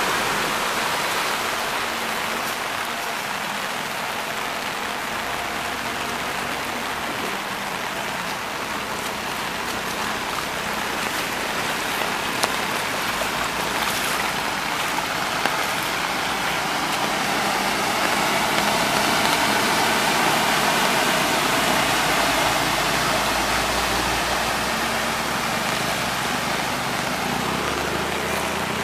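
Floodwater rushing across a street, a steady wash of water noise that swells a little past the middle.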